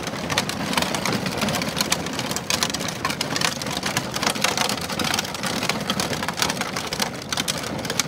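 Hard plastic wheels of a ride-on toy tractor rolling over a gritty paved path: a steady, dense crackle.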